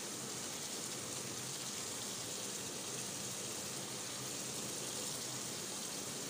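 Steady sizzling hiss from a pot of stew cooking over a gas burner.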